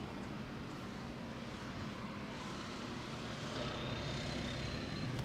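Road traffic: a vehicle engine rumbling steadily and growing a little louder toward the end, as if approaching.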